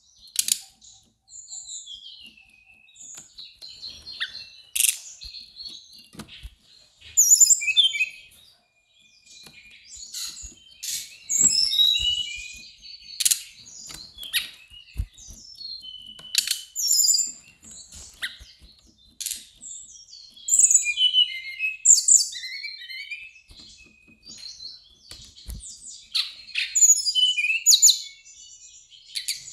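Brown-chested jungle flycatcher singing: a long run of short, varied, high-pitched chirping phrases that come in bursts with brief pauses between them.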